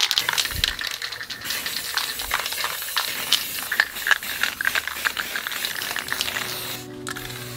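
Aerosol spray paint cans hissing, with a clicking rattle throughout. Music comes in near the end.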